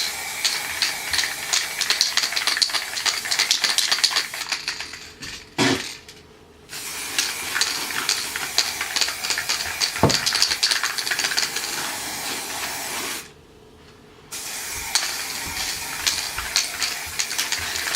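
Aerosol spray-paint can hissing in three long bursts, with short pauses about five and thirteen seconds in. A brief low thud sounds about ten seconds in.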